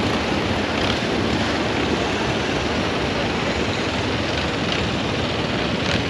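Tour boat's engine running with a steady, even drone.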